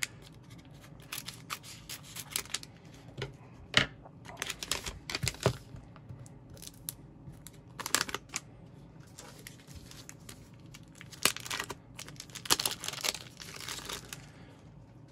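Shiny green mylar pouch crinkling and being torn open by hand, in short irregular bursts of rustling.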